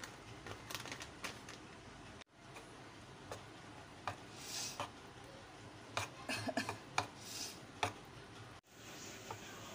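Spoon clinking and scraping against a steel mixing bowl while batter is stirred: faint, irregular taps that come thickest in a flurry near the end.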